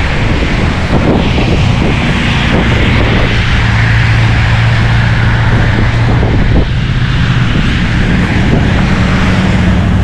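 Strong wind blowing over the microphone in a snowstorm, a loud steady rush over a low rumble, with road traffic running underneath and a steady engine hum through the middle.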